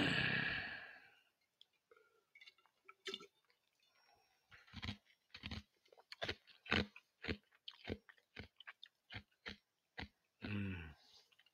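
Close-miked mouth sounds of someone chewing food, a run of short crunches about twice a second, opened by a loud breath-like burst of noise and closed by a brief low voiced sound near the end.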